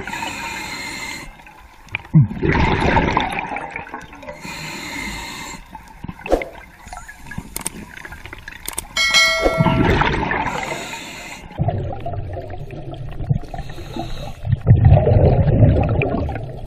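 Scuba diver breathing underwater through a regulator: repeated rushes of exhaled bubbles and hissing breaths, each about one to two seconds long. A short bell-like ding sounds about nine seconds in.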